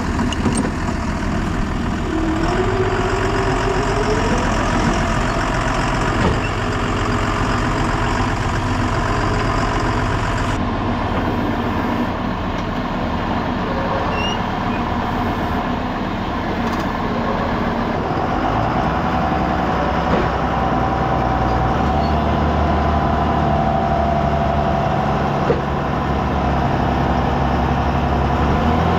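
Tractor engine running steadily, with its pitch rising for a couple of seconds early on and its low note changing about two-thirds of the way through.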